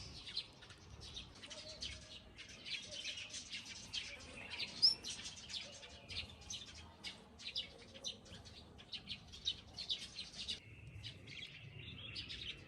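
Small bird chirping: a continuous stream of short, high chirps, with a few louder notes that rise in pitch.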